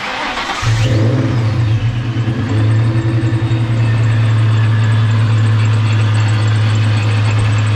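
A 1990s Ford Mustang's centrifugal-supercharged V8 fires up and settles into a steady idle.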